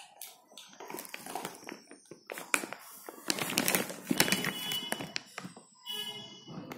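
Labrador puppy chewing a mouthful of dry kibble: irregular crunches and clicks.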